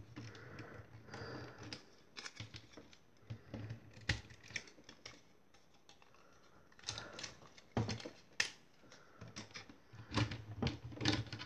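Plastic parts of a Transformers action figure clicking, snapping and rubbing as it is handled and folded through its transformation, with a few sharper clicks about four seconds and eight seconds in.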